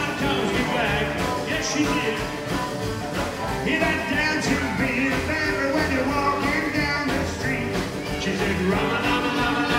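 Live rockabilly band playing an up-tempo rock and roll number on drums, upright double bass, electric and acoustic guitars and electric keyboard.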